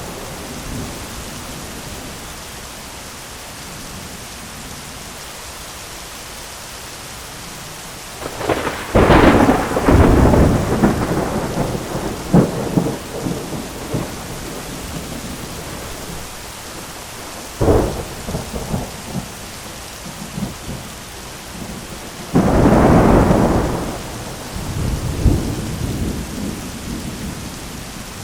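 Heavy rain falling steadily on an umbrella during a thunderstorm. A long rolling thunder rumble with crackles starts about 8 seconds in, a sharp thunder crack comes near 18 seconds, and another rumble follows around 22 seconds.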